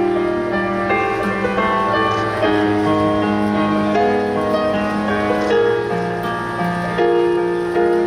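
A high-school choir singing a slow song in sustained chords with piano accompaniment, the chords changing about once a second.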